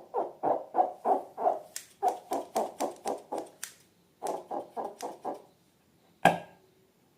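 Slime being squished by hand: a run of short wet squelches, about three a second, that pauses briefly and stops; a single sharp click or snap follows about a second later.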